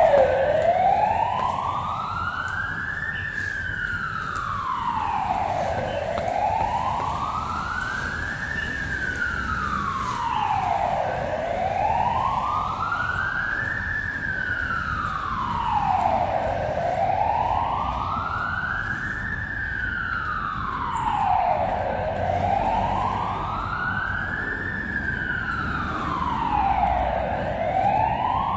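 Emergency-vehicle siren on a slow wail, rising and falling in pitch about every five seconds, about five cycles, over a low hum of traffic.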